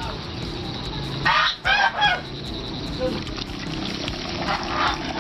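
Domestic ducks quacking loudly: two harsh calls back to back a little over a second in, and a fainter one near the end.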